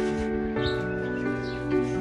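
Background music: sustained chords with a change of notes about half a second in and again near the end.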